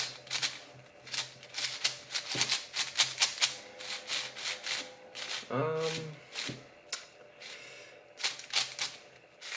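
Plastic clicking and clacking of a MoYu AoChuang 5x5 speedcube's layers being turned in quick flurries by hand. The cube is brand new out of the box and a little dry.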